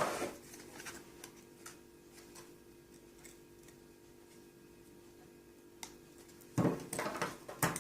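A few faint ticks, then near the end a burst of clicking, scraping and crackling as a cracked glass touchscreen is prised away from its double-sided adhesive on the LCD panel.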